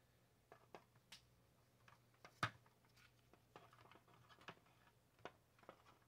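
Near silence broken by faint, scattered clicks and taps of plastic space-heater housing parts and wiring being handled, the loudest about two and a half seconds in.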